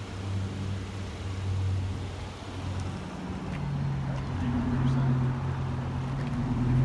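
A vehicle engine idling: a steady low hum that shifts higher about halfway through.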